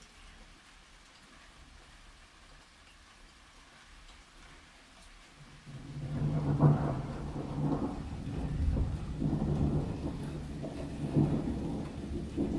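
Light rain hissing faintly, then about five and a half seconds in a long peal of thunder begins. It rolls on as a low rumble with several swells, the loudest shortly after it starts.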